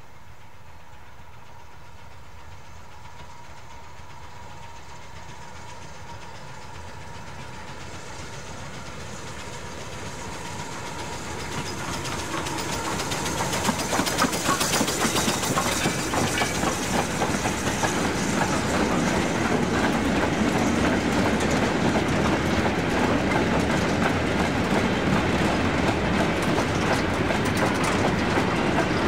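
BR Standard Class 2MT 2-6-0 steam locomotive No. 78019 approaching with a freight train of steel mineral wagons, growing steadily louder until it passes about halfway in. The wagons' wheels then clatter over the rail joints as the train rolls by.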